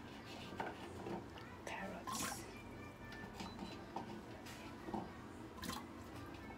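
Soup bubbling gently in a ceramic pot, with a few short soft splashes and clicks as it simmers, under quiet background music.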